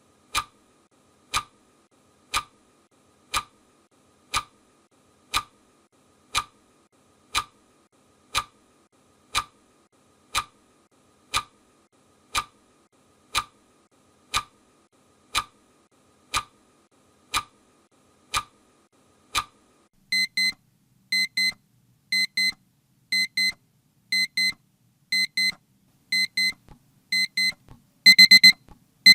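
Clock ticking once a second, then about 20 seconds in an alarm clock starts beeping in quick clusters of short high beeps about once a second, louder near the end: the countdown has reached zero.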